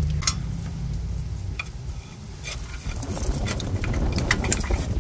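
Small metallic clicks and clinks as a rear brake caliper is handled and worked off its rotor. The clinks are sparse at first and come thick and fast from about three seconds in. A low rumble dies away over the first two seconds.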